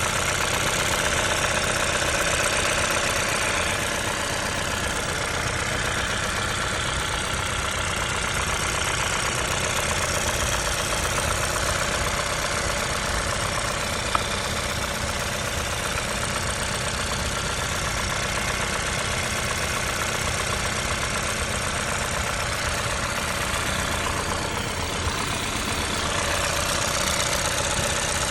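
Hyundai i20 N engine running steadily at idle with a knocking noise, and a single sharp click about halfway through.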